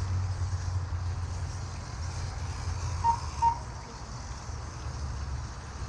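Steady low outdoor rumble with a faint hiss, and two short electronic beeps about half a second apart, about three seconds in.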